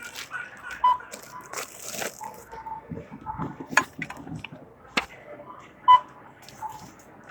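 Checkout-lane sounds at a store register: short beeps from a barcode scanner as items are rung up, with plastic bags rustling and items clicking down on the counter.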